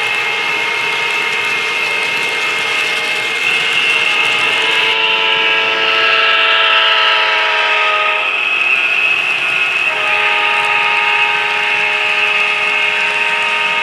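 HO scale model freight train running, with the sound of its diesel locomotives and a horn. It is a steady mix of tones over the running noise, which shifts pitch about five seconds in and back again about ten seconds in.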